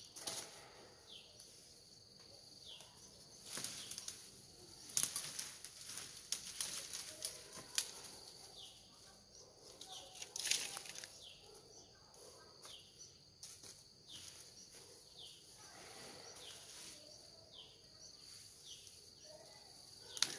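Dry bamboo branches and dead brush rustling and crackling as they are pulled out and tossed aside, in uneven bursts. A short falling chirp repeats every second or two.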